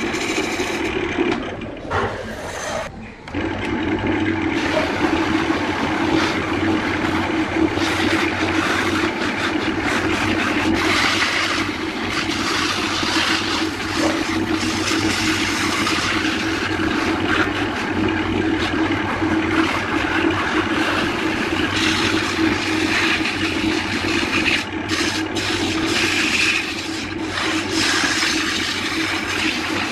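Wood lathe running with abrasive paper held against a spinning areca-root vase: a steady rushing hiss of sanding over the lathe motor's hum. In the first few seconds a turning tool scrapes the wood, and the sound dips briefly about three seconds in.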